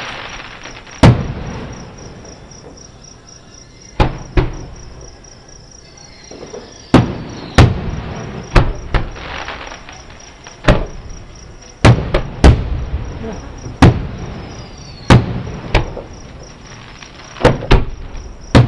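Aerial fireworks shells bursting about a mile off: around fifteen booms at uneven intervals, some in quick pairs, each with a short rumbling tail. Crickets chirp steadily underneath.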